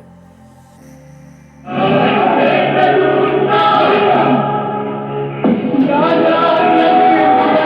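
Film theme music with a choir singing, played at full volume through a Portronics Pixel 8 W Bluetooth speaker. It opens with quiet, low held notes and turns loud about one and a half seconds in.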